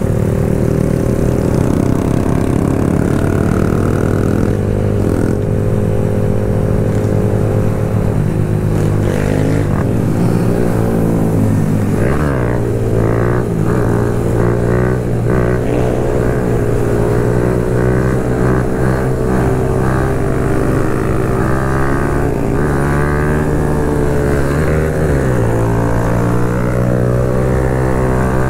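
Kawasaki Z125 mini bike's single-cylinder engine running through an aftermarket full exhaust while riding, its note steady but dipping and climbing again with throttle or gear changes about twelve seconds in and again near the end; other mini bike engines run alongside.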